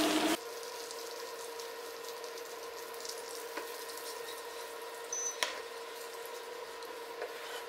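Melted butter sizzling in a small non-stick frying pan with red pepper flakes and dried mint, stirred with a wooden spoon; a few light clicks of the spoon against the pan. The sizzle is louder for the first half-second, then drops suddenly to a steady quieter sizzle over a faint hum.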